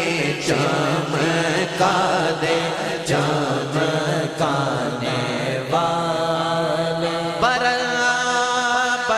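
A male naat reciter singing in long, ornamented held notes over a steady low drone.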